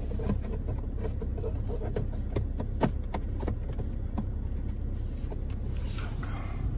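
Scattered clicks and knocks of handling as a diagnostic adapter's plug is fitted into the car's OBD port under the dashboard, the sharpest knock about three seconds in, over a steady low hum.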